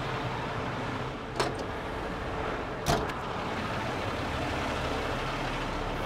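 Steady rumble of idling heavy tow-truck engines under traffic noise, with two short sharp knocks about a second and a half apart.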